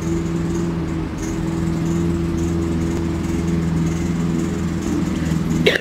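Lawn mower engine running steadily at one constant pitch, with a brief sharp sound just before the end.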